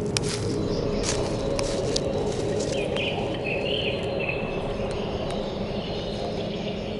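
Forest ambience of insects with birds chirping. In the first couple of seconds there is a run of crackling clicks, like footsteps crunching dry leaves.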